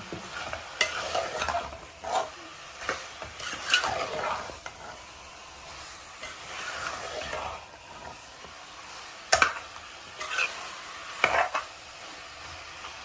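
Chicken pieces sizzling as they fry in oil with spices, stirred with a spoon that scrapes and knocks against the pot now and then, with a few sharp clicks about nine and eleven seconds in.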